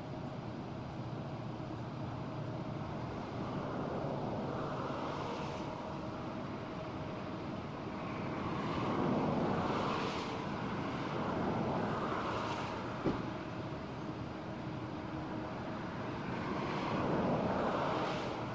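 Distant diesel freight locomotives with their train, a steady rumbling drone that swells and fades several times. A single sharp click comes about two-thirds of the way through.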